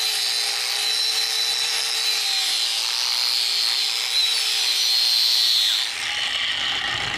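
Angle grinder with a wire wheel brushing the root pass of a steel pipe weld, cleaning off the silicon deposits before the hot pass. A steady whine with a hiss of the wire on metal, dropping away about six seconds in.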